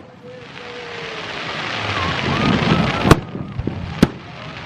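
Aerial fireworks bursting: two sharp bangs about three and four seconds in, over a hiss that builds during the first three seconds. Crowd voices underneath.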